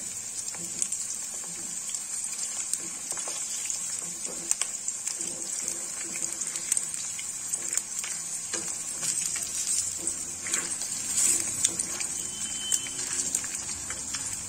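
Batter-coated bhetki fish pieces deep-frying in hot oil in a wok: a steady sizzle with frequent crackling pops.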